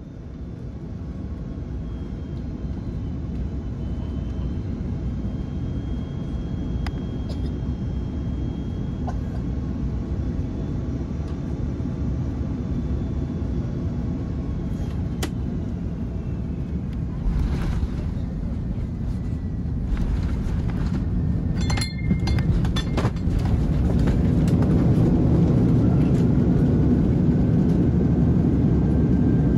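Cabin sound of an Airbus A330-300 landing on a wet runway: a steady rumble with a thin engine whine, growing louder. A cluster of knocks and rattles comes about two-thirds through, then the engines spool up into full reverse thrust and the rumble is loudest near the end.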